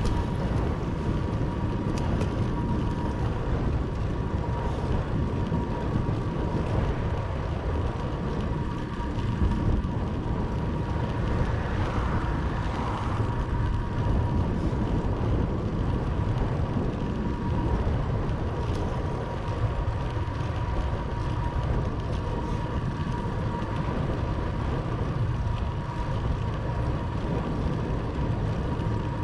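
Wind rushing over the microphone with rolling road noise while cycling along, under a thin steady whine.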